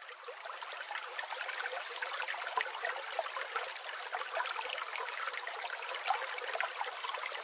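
Steady fine crackling hiss like trickling water, with no low rumble, fading in over the first second.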